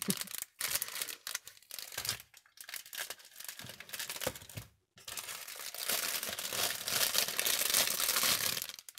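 Clear cellophane wrapping crinkling and rustling as it is untied and pulled open by hand. It comes in short, broken patches at first, then runs almost without a break for the last four seconds or so, and cuts off suddenly just before the end.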